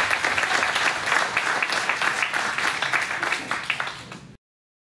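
Audience applauding: a dense patter of many hands clapping, thinning out near the end and cutting off suddenly a little over four seconds in.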